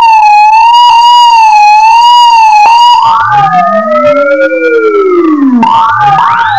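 Warbling electronic tone near 1 kHz with overtones, wavering up and down in pitch. About three seconds in, it splits into sweeping tones, one arching up and back down while another slides far down, then returns to a warbling tone near the end.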